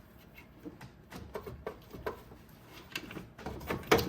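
Scattered light metallic clicks and knocks as a loosened alternator is worked free of its mounting bracket, ending in a louder clatter.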